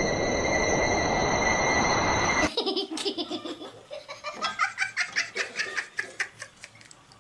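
A loud hiss with steady high tones cuts off abruptly about two and a half seconds in. It gives way to a run of quick, repeated bursts of laughter that fade toward the end.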